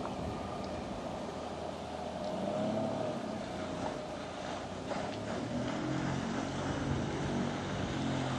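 Motor of the Wartburg boat running steadily under way, with water and wind noise around it.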